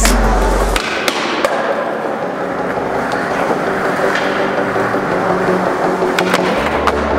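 Skateboard tricks: a few sharp wooden clacks of the board snapping and landing, about a second in, half a second later, and again near the end.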